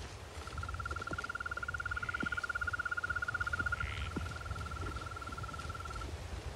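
An animal's long trill: one fast, even trill on a single pitch, starting just after the beginning and stopping about six seconds in, over a low rumble.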